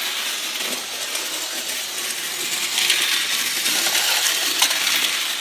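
1930s Lionel toy locomotive running on its metal track: a steady metallic rattle and whir of wheels and electric motor, swelling and easing as it goes round, with a few small clicks.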